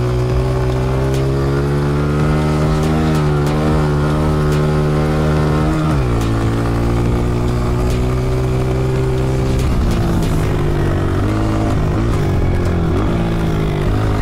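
Honda CRF125F's small four-stroke single-cylinder engine running under throttle. Its pitch holds steady, dips sharply about six seconds in and climbs back. It drops again near ten seconds and then rises and falls in short swells with the throttle.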